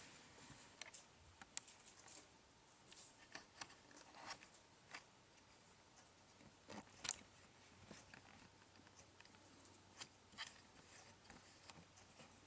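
Near silence broken by faint, scattered small clicks and taps, from a camera being handled and readjusted.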